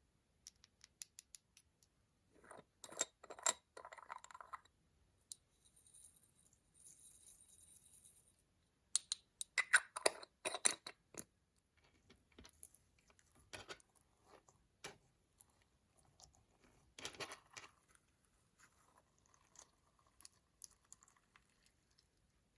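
Close, intermittent handling sounds of makeup and slime being worked: sharp clicks and taps mixed with short stretches of scraping and crunching.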